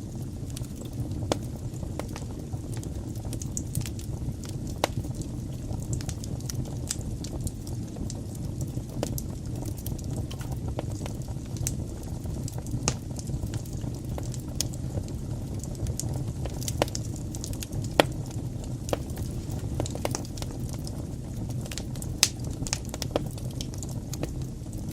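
Wood fire burning in a fireplace: a steady low rumble of flames with irregular sharp crackles and pops, a few louder snaps about two-thirds of the way through and near the end.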